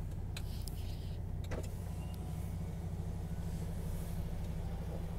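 Heavy truck's diesel engine idling, heard inside the cab as a steady low hum, with two short clicks in the first second and a half.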